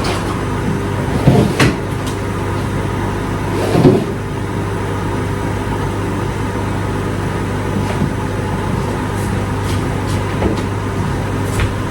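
Steady mechanical hum of a running kitchen appliance motor, with a few short knocks of cookware or a cupboard door at about one and a half seconds and four seconds in.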